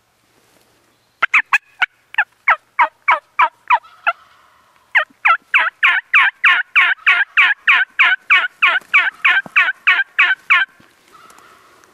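Loud, fast turkey yelping: sharp notes, each falling in pitch, about four a second, in two long runs with a short break about four seconds in.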